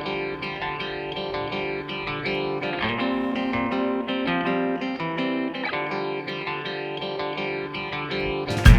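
Background music played on guitar, plucked notes in a repeating pattern. Near the end a louder passage with heavy bass and sharp beats cuts in.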